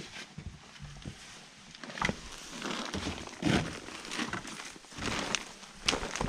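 Footsteps through tall grass, the stalks rustling and swishing against legs and the camera in irregular rustles with a few soft knocks.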